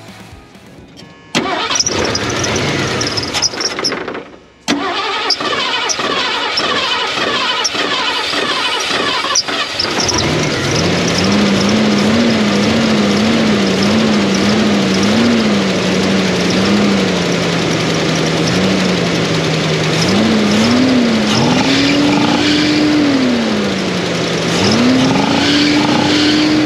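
A 1979 Ford F-100's 351M V8 being cranked over with the starter in two tries, catching about ten seconds in, just after its Motorcraft carburetor has been rebuilt. The idle surges up and down for a few seconds, settles to a steady idle, then is revved up and back down twice near the end.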